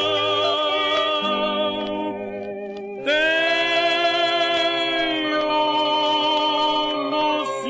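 Hymn music: long held notes with vibrato, with a new note coming in about three seconds in.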